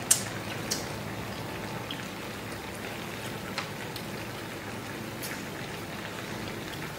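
Dry pot of bullfrog sizzling steadily on a portable gas stove, with a few sharp crackles.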